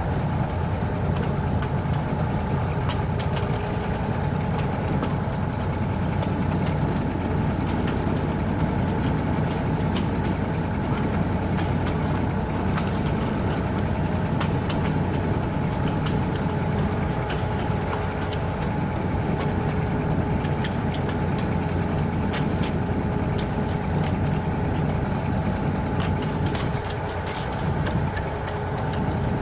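Diesel engine of a narrow-gauge train running steadily under way, with a low hum and a constant whine, over scattered sharp clicks from the wheels on the track.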